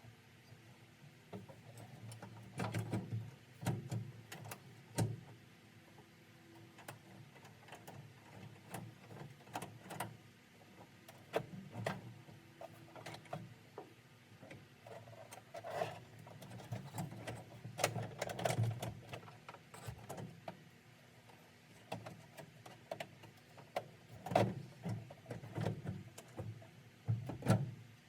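Irregular clicks, clanks and knocks of hand tools and metal parts being handled during work on an old pickup, with busier stretches a few seconds in, in the middle and near the end.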